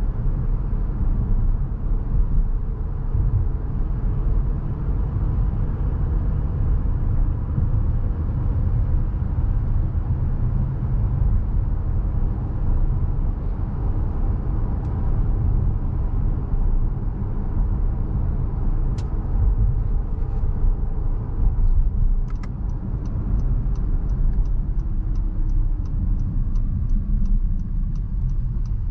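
Inside the cabin of a 2020 Honda Pilot Touring driving at city speed: steady tyre and road rumble with a low engine hum, easing slightly as the SUV slows near the end. About two-thirds of the way in, the turn-signal indicator starts ticking, a little more than twice a second.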